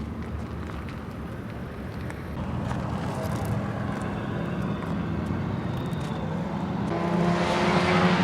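A car engine running at a steady pitch, growing louder over the last second or so until it is loudest near the end.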